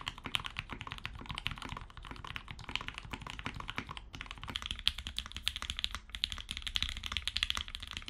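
Fast, continuous typing on a mechanical keyboard, played as a sound test of a "thocky" switch: deeper, duller keystrokes. After a short break about halfway through, the keystrokes turn brighter and sharper, a "clacky" keyboard.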